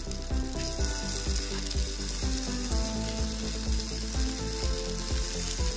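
Potato gnocchi frying in olive oil in a hot nonstick pan, with a steady sizzle. Background music with a regular beat plays underneath.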